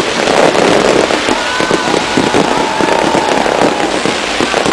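Dense, continuous crackling and popping of many fireworks and firecrackers going off at once, with a few thin gliding whistles over it.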